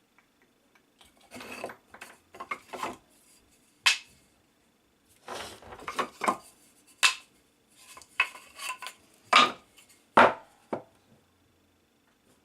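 Irregular knocks and clatter of wooden pieces being handled and set down on a workbench, with some lighter clinks. Several sharp knocks stand out in the middle and near the end.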